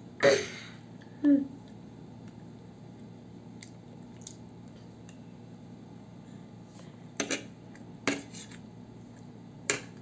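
Metal spoon and fork clinking and scraping against a dinner plate, loudest just after the start, with a few more scattered clinks later on.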